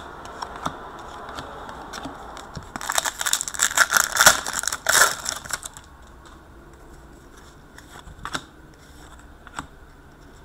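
Trading cards and their packaging being handled: a dense burst of crinkling and rustling about three seconds in that lasts about three seconds, then a few light clicks.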